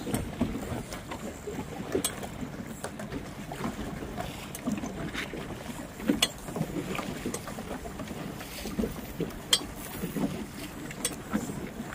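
Wind and choppy water slapping around a small boat, with scattered sharp knocks.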